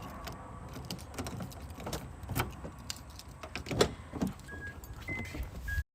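Irregular clicks, knocks and rustles of a phone being handled, with a low rumble underneath and a few short high beeps near the end. The sound then cuts off abruptly as the live stream drops out.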